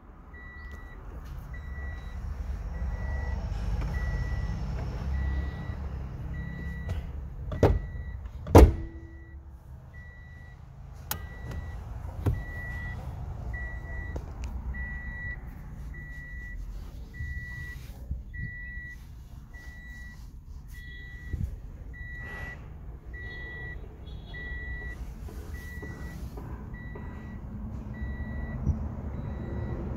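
A short, high electronic beep repeating about once a second over a low rumble, with two sharp knocks about eight seconds in.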